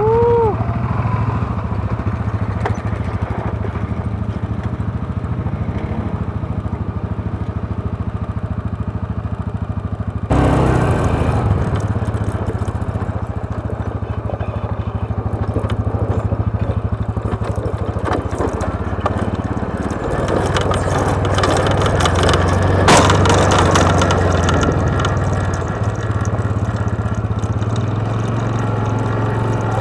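ATV engine running steadily at low revs while riding downhill over a rocky dirt trail, with a sharp knock about two-thirds of the way through.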